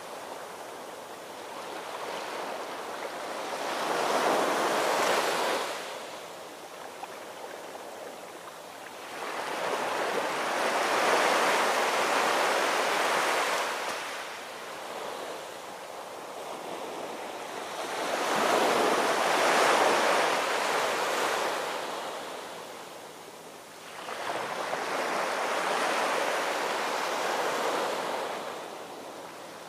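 Ocean surf: waves breaking and washing up a shore, swelling and fading four times, roughly every seven seconds.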